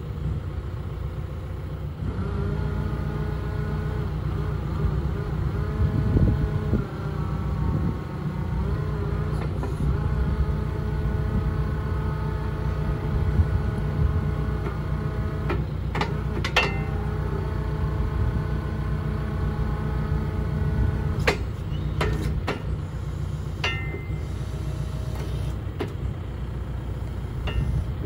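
Excavator's diesel engine running, with a steady whine from its hydraulics that wavers in pitch as the fork grab attachment is turned and tilted. Several sharp metallic clunks come in the second half.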